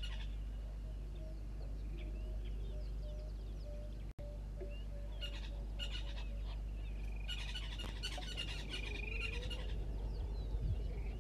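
Several wild birds calling: chirps, trills and rapid chattering notes that grow busier in the second half, with a series of low, evenly spaced notes about twice a second in the first half. A steady low hum lies under it, and the sound cuts out for a moment about four seconds in.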